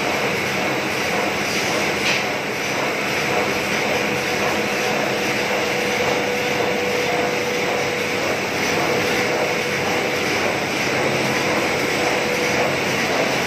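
Three-layer plastic film extrusion and winding machine running, a steady mechanical din of motors and rollers. A faint steady tone comes in about four seconds in and fades near the end.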